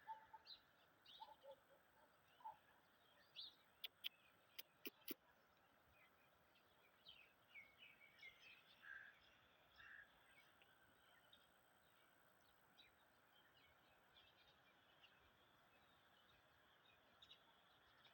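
Near silence with faint, scattered bird chirps over a low hiss, and a few sharp clicks about four to five seconds in.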